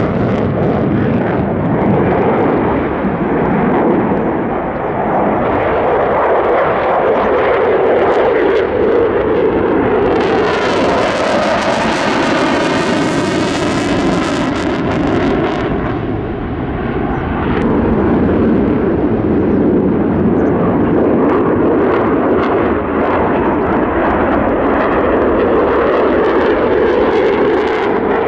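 F-15J fighter's twin Pratt & Whitney F100 turbofans running at high power, afterburners lit, as the jet flies its display: a loud, continuous jet roar. From about ten seconds in, a harsh, hissing top end with a sweeping, phasing quality joins for several seconds as the jet passes closest, then falls away.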